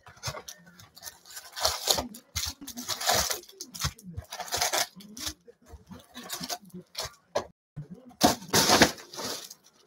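Foil trading-card packs rustling and crinkling as they are pulled out of a cardboard hobby box and set down in stacks, in a run of irregular bursts with light knocks, the loudest burst near the end.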